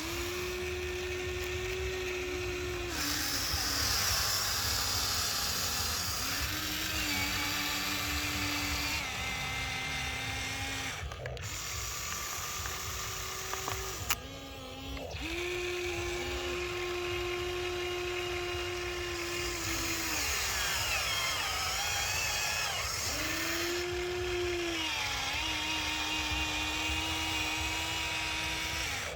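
Small electric motor of a toy excavator or truck whirring in runs of a few seconds, starting and stopping repeatedly, its pitch rising as each run starts and falling as it stops.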